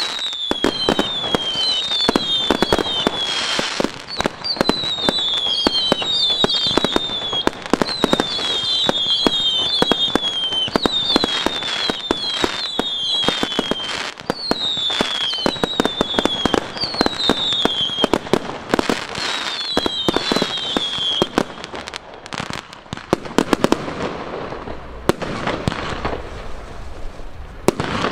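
Fireworks show: cakes firing a dense run of bangs and crackle, with many short falling whistles overlapping one another. The whistles stop about three-quarters of the way through, leaving only bangs and crackle.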